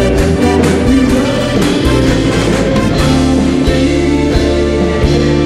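Live band playing up-tempo dance music, with a steady drum beat and electric bass and no singing.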